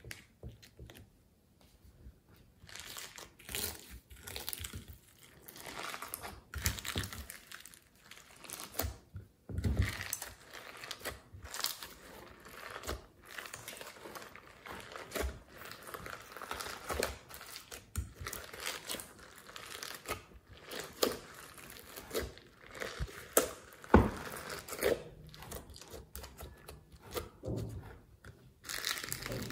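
Hands working soft modeling clay, sequins and glitter into glossy slime in a glass dish: irregular sticky crackling, tearing and squishing sounds with scattered sharp clicks and a few soft thuds.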